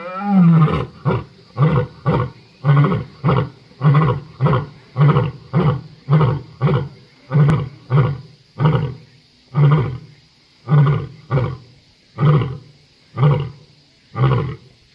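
Lion roaring: one long moan that rises and falls at the start, then a long run of short, deep grunts, about two a second, slowly spacing out.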